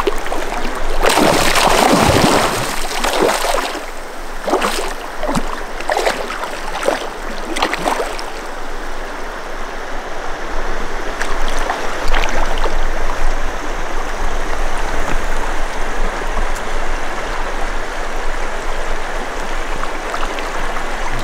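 Fast river current rushing and gurgling close to the microphone. About a second in comes a loud surge of splashing, and several sharp splashes follow between about four and eight seconds before the flow settles into a steady rush.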